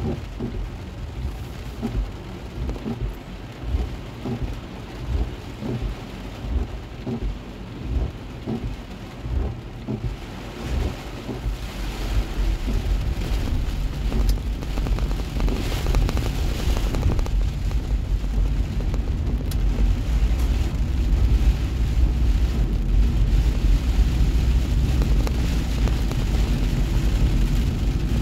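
Heavy rain drumming on a car's roof and windshield, heard from inside the cabin, with a pulse about once a second from the windshield wipers sweeping. About twelve seconds in, a low rumble of tyres on the flooded road and wind rises as the car pulls away, and stays loud.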